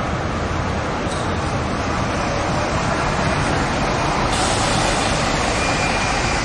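Steady city traffic noise, an even wash of vehicle sound with no distinct events.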